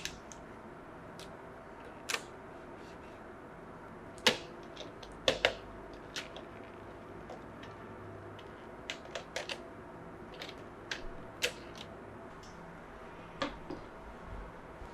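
Irregular light clicks and taps, about a dozen spread through, from small plastic N scale model train cars and their plastic packaging being handled.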